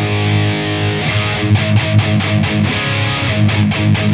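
Distorted electric guitar played through a TONEX One amp-modelling pedal. A chord rings out, then quick choppy chords follow with short stops, about five a second.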